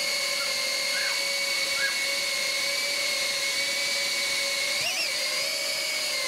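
Mobula tiny-whoop FPV drone's small brushless motors whining steadily in flight, with a brief rise and wobble in pitch about five seconds in as the throttle changes.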